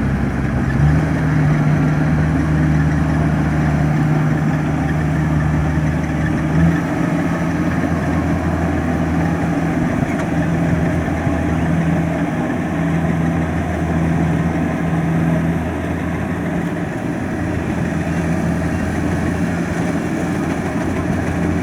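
Kubota DC-70 combine harvester's diesel engine running steadily with its machinery clattering; its low engine note shifts about a second in and again near seven seconds.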